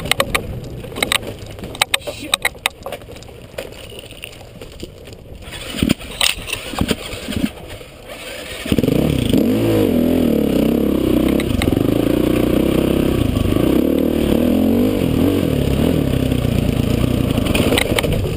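Dirt bike engine on a rocky single-track trail. For the first half it runs low and light under sharp rattles and knocks from the bike over stones. About nine seconds in the throttle opens and the engine runs loud on the uphill, its pitch rising and falling with the throttle.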